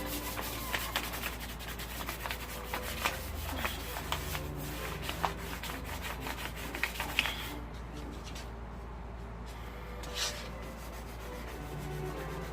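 Sandpaper, 600 grit, rubbing over the painted metal of a motorcycle fuel tank in quick, rapid strokes. The strokes ease off about seven and a half seconds in, with one stronger stroke about ten seconds in, and pick up again lightly near the end.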